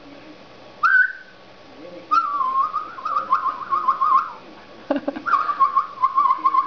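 A person whistling: a short rising note, then two long warbling whistles with a quick wavering, the second sinking a little lower near the end. A single knock comes just before the second whistle.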